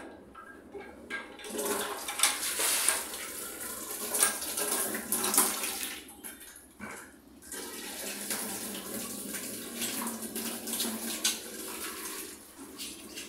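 Water from a wall tap running into a plastic bucket as it fills, dropping away briefly about six seconds in and then running again.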